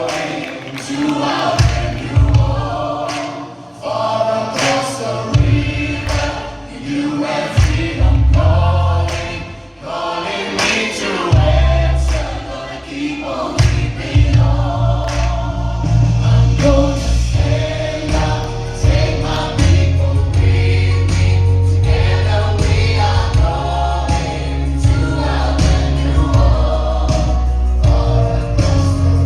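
A choir singing a gospel-style song with a steady low accompaniment underneath.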